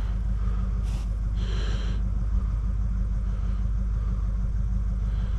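An engine idling steadily, a low even drone.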